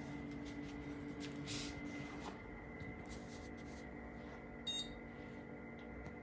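Desktop PC running just after power-on, its fans making a faint steady hum with a thin high whine, with a few soft handling rustles and one short beep about three-quarters of the way through.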